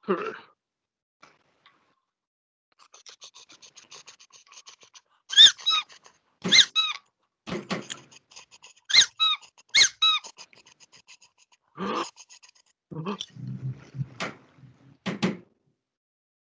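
Home-made Foley for a cartoon jalopy: a fast, faint rattling patter for its engine, then a series of short squeaky honks for its bulb horn, which are the loudest sounds. A few thumps and a short low rumble follow near the end.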